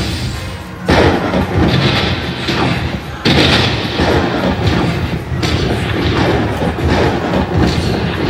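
Slot machine's bonus-win sound effects: booming hits over electronic jingle sounds, the biggest about a second in, just past three seconds and past five seconds, as the collected prize values are added to the win total.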